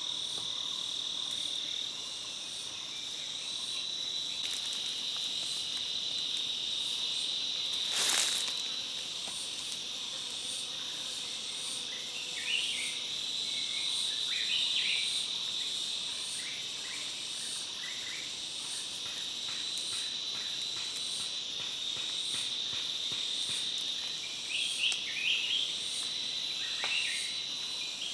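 Forest insects, crickets or cicadas, keep up a steady high-pitched drone with a regular pulsing chirp a little over once a second. A single sharp click comes about eight seconds in, and short chirps come and go in the later part.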